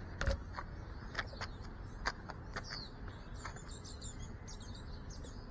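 Small birds chirping in short high calls, with a few sharp clicks in the first couple of seconds.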